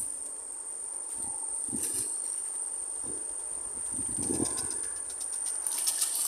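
A steady high-pitched insect drone runs throughout, with a few soft low thumps. About six seconds in comes a quick splash of rapid clicks as a fish strikes the spinner at the water's surface.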